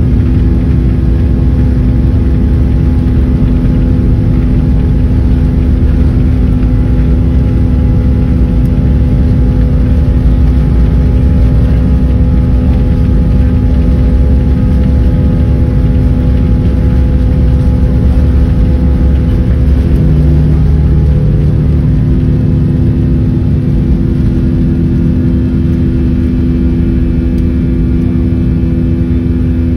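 Airliner's jet engines and ground rumble heard from inside the cabin as the plane rolls along the runway: a loud, steady rumble with several steady humming tones. About two-thirds of the way through, a lower tone joins in.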